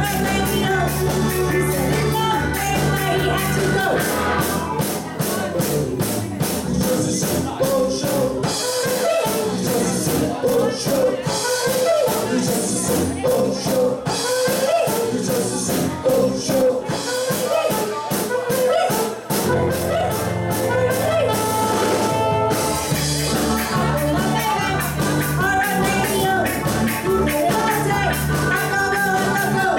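A ska band plays live with a female lead singer over electric guitar, keyboards, drums and horns. The deep bass drops away from about four seconds in and comes back in full at about nineteen seconds.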